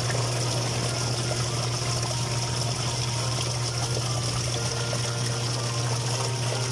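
Panasonic NA-W528B twin-tub washing machine's wash motor running with a steady hum while the pulsator churns and swirls the water in the tub. The machine is running at full strength after a new capacitor and a reversed drive belt.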